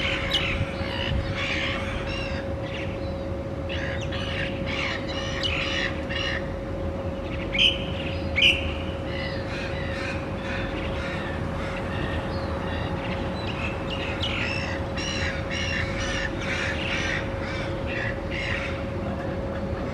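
A mixed flock of scavenging urban birds calling almost without pause, a busy chatter of squawks and caws, with two louder calls a little before and after eight seconds in. A steady hum runs underneath.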